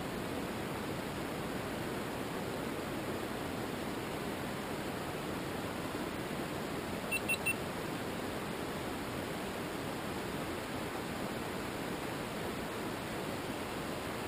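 Steady hiss and rush picked up by a GoPro camera mounted on the outside of a rocket in flight, with three quick high beeps from the camera just past the middle.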